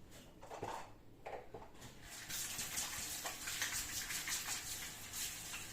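Water running from a kitchen tap, starting about two seconds in as a steady splashing hiss, while hands are washed under it.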